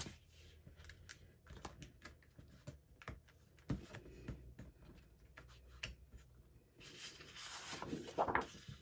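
Sheets of 12-by-12 patterned scrapbook paper being handled and flipped: faint scattered rustles and light taps, with a longer swishing rustle near the end.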